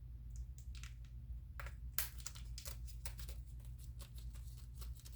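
Sealed plastic shrink-wrap being slit open with a guitar pick: faint, irregular crackles and ticks, with a sharper click about two seconds in.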